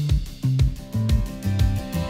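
Upbeat instrumental music with a steady drum beat of about two hits a second under a moving bass line, with no singing.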